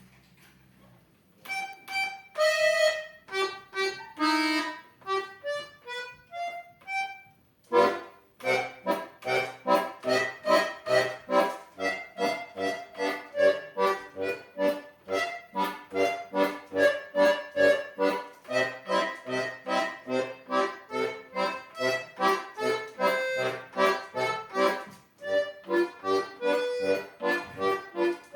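Accordion playing a lively instrumental piece: a few loose, spaced-out opening phrases, then, about eight seconds in, a fast, detached melody over a steady, pulsing bass-and-chord accompaniment.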